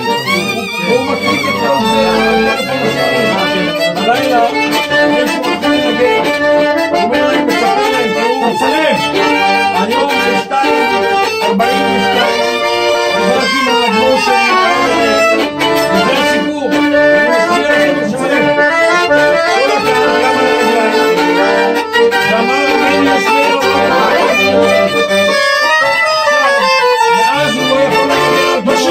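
Violin playing a slow, gliding melody over held chords from another instrument, continuous throughout.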